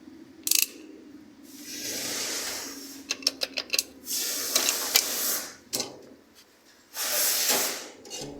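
Mechanical working sounds: a sharp click, then noisy bursts of a second or so each, with a quick run of about six clicks a little after three seconds.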